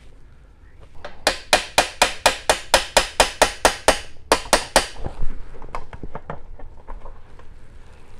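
Mallet rapidly tapping the brass valve casing of a vintage single-piston bugle: about four sharp blows a second for nearly three seconds, a brief pause, three more, then a few lighter taps. The tapping is to work loose a piston stuck fast by decades of corrosion.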